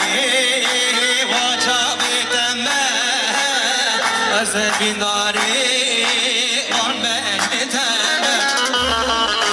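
Middle Eastern folk music playing continuously: an ornamented, wavering melody over steady held notes.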